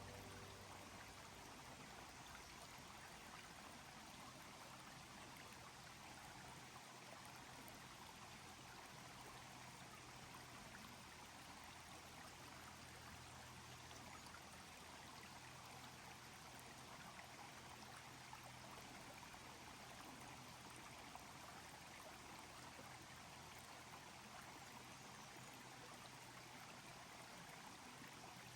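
Near silence: a faint, steady hiss of water.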